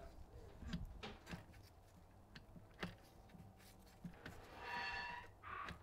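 Faint clicks and knocks from a Bosch VE diesel injection pump being handled and turned by its toothed pulley on a workbench, with a brief squeak near the end.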